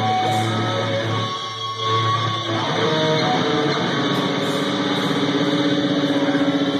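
Live metalcore band playing loud distorted electric guitars and bass. From about four seconds in, a single note or chord is held and rings on steadily with a fast pulsing.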